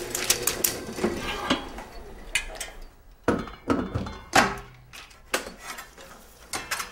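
Irregular mechanical clicks and knocks from a flatbed reel editing machine as a reel is set on its platter and its parts are handled, the loudest knock about four and a half seconds in.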